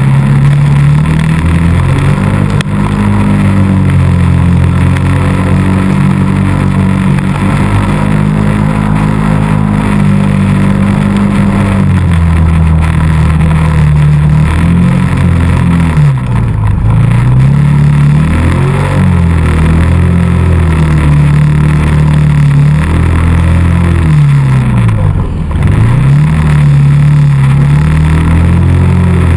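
ATV engine running under throttle, its note held steady at first. Later the revs drop sharply and climb back up twice as the throttle is let off and opened again.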